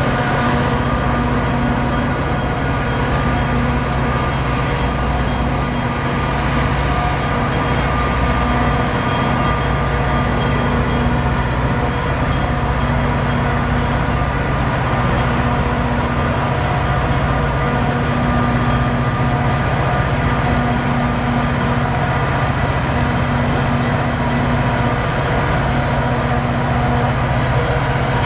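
EMD F40PH-3 diesel-electric locomotive running steadily, a loud, even engine drone with a stack of steady tones.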